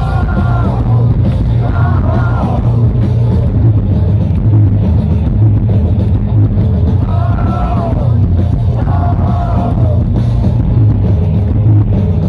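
Live rock band playing loudly, with heavy bass under it and a singer's voice coming in short sung phrases a few times.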